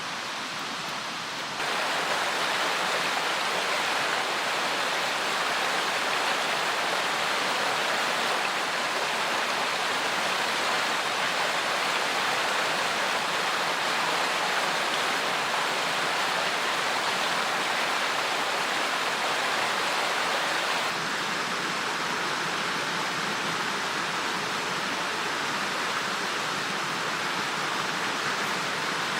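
Rushing mountain stream: a steady, even wash of flowing water. It grows louder about two seconds in and drops a little about 21 seconds in.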